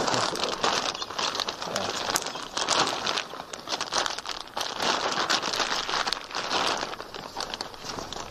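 A large polythene bag crinkling and crackling steadily as it is worked over a leafy eucalyptus branch.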